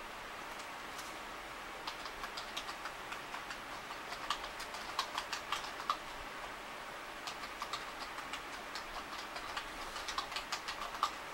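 Typing on a computer keyboard: two runs of quick keystrokes with a short pause about six seconds in, over a steady hiss.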